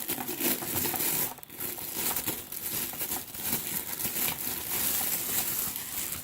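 Packaging being handled and crumpled, a continuous crinkling and crackling with a short pause about a second and a half in.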